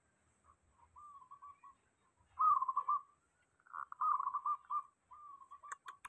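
Zebra dove (perkutut) cooing in its cage: four rolling, warbling coo phrases about a second apart, the middle two the loudest.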